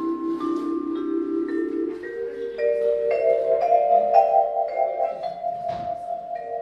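Vibraphone played with mallets: notes ring on and overlap, a low chord held for about two seconds and then changing, with a melody of struck notes climbing above it.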